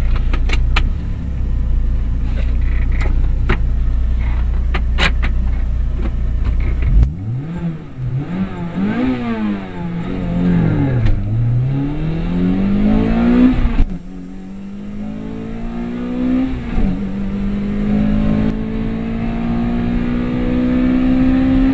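Car engine and road rumble heard from inside the cabin while driving fast. For the first few seconds there is a steady low rumble with scattered knocks. Then the engine note rises and falls several times and climbs steadily near the end as the car accelerates toward 100 mph.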